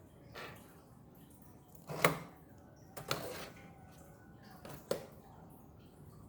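Small plastic clicks and taps as a laptop keyboard's ribbon cable is worked into its connector and the connector latch is pressed shut. There are four short clicks, the loudest about two seconds in.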